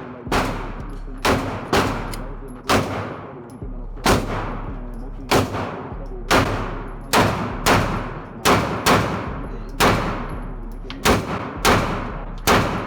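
Handgun shots fired one after another at an uneven pace, about eighteen in all, each with a ringing tail. Some come in quick pairs and runs, others after pauses of a second or more.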